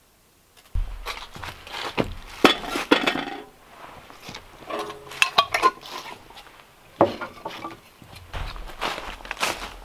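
Metal cookware clinking and knocking on an outdoor stove counter, in several short clusters of sharp clinks with a little ringing.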